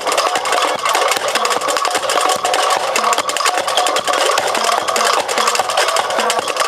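Percussion-driven music: rapid, dense knocking beats over a short melodic phrase that repeats.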